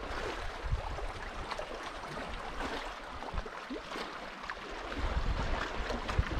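Small waves lapping and splashing against a kayak hull. Wind buffets the microphone, stronger about five seconds in.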